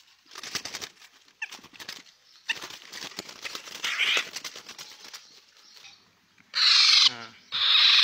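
A black-naped oriole flutters and thrashes while being grabbed by hand inside its wire cage: wingbeats and rattling of the cage. About six and a half seconds in, the bird, now held in the hand, gives two loud, harsh squawks.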